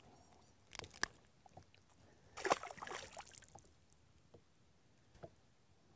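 Faint handling sounds at a bass boat's side: two light clicks about a second in, then a brief splash of water about two and a half seconds in.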